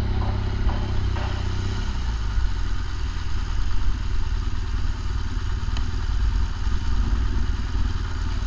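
BMW GS Adventure motorcycle engine running at low speed as the bike is ridden slowly, a steady low engine sound.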